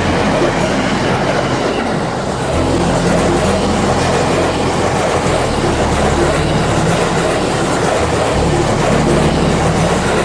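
Train on the JR Tokaido Line running past, a loud, steady rumble of wheels on rails.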